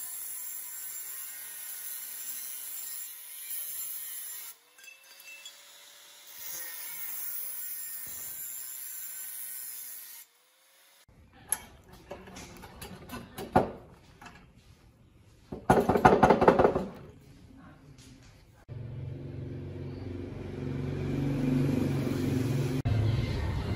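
Angle grinder with a thin cut-off disc cutting a steel square tube, a steady hiss that drops out briefly and stops about ten seconds in. Then a run of metal clicks and rattles from working the small vise's sliding handle, loudest a little after halfway, followed by background music from about nineteen seconds on.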